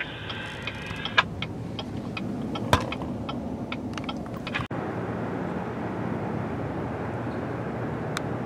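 Steady road and engine noise inside a moving car, with a few sharp clicks and knocks. About four and a half seconds in it cuts abruptly to a steady outdoor rumble with a low hum.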